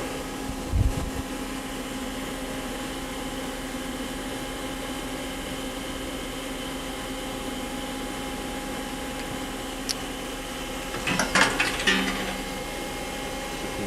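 Star SV32J CNC Swiss-type lathe running with a steady hum and several constant whining tones. A dull thump comes about a second in, and a short cluster of mechanical clunks and rattles comes near the end.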